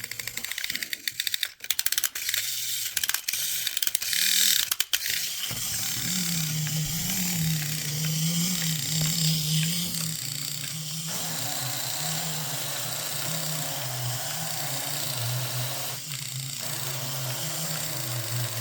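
Vintage Marx wind-up Mighty Kong toy: its key ratchets with rapid clicks for about five seconds as it is wound, then the clockwork motor runs with a steady, low, wavering growl.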